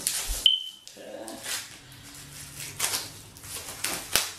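Clear plastic album wrapping crinkling and rustling as it is pulled off and handled, in scattered crackles. About half a second in comes a short high whine that falls slightly.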